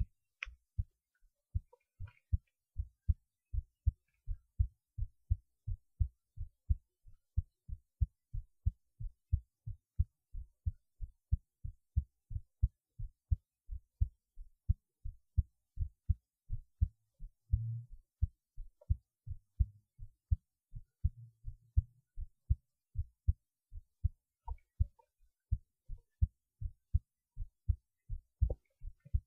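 A person's heartbeat picked up close against the chest while they lie on their left side: a steady rhythm of short, low thumps, about three a second. A brief low rumble rises under the beats a little past the middle.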